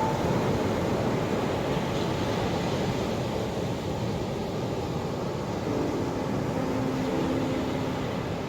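Ocean surf: a steady wash of waves without distinct breaks.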